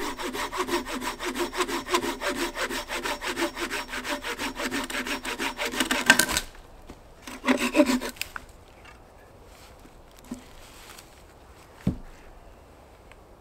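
Hand saw cutting through a very hard, heavy log in quick, even strokes; the wood is tough and slow to cut. The sawing stops about six seconds in, and a brief run of a few more strokes follows a second later.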